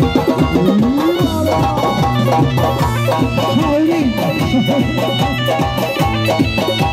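Loud amplified live folk-pop music: a male singer singing wavering, ornamented lines into a microphone over electronic keyboard accompaniment with a percussion beat and a steady bass.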